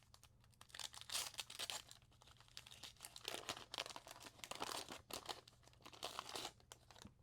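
Wax-paper wrapper of a 1981 Fleer baseball card pack being torn open and crinkled by hand: a run of crackling, rustling tears.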